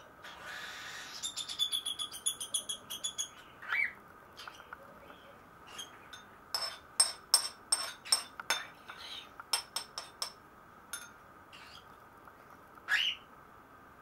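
Baby cockatiels calling. One run of quick, short, repeated high calls comes early and a second run in the middle, and a rising chirp stands out twice, near the 4-second mark and near the end.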